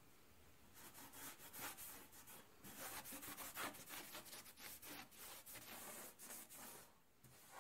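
Faint scrubbing strokes of a cloth shop rag wiping over a cast-iron engine block, starting about a second in and stopping near the end.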